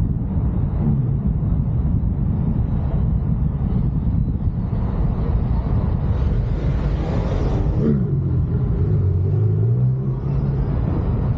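Steady low rumble of a car driving, wind and road noise on the microphone. A brief louder hiss comes about six to eight seconds in, and a low engine hum with a falling pitch follows it.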